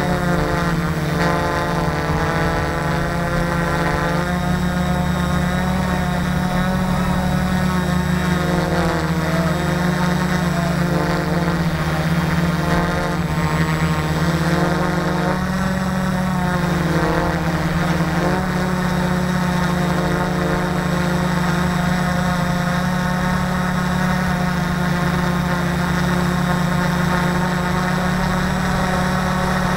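Electric motors and propellers of a multicopter in flight, recorded on board: a loud, steady whirring drone whose overtones waver up and down in pitch as the motor speeds change.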